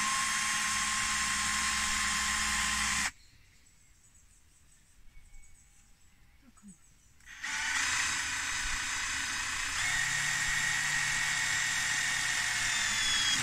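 Cordless drill-driver on a low setting, driving self-drilling screws into a softwood frame: a steady motor whine for about three seconds, stopping, then a second, longer run starting about seven and a half seconds in whose pitch shifts a little about ten seconds in, stopping at the end. The low setting keeps the screw from pulling in too hard and cracking the wood.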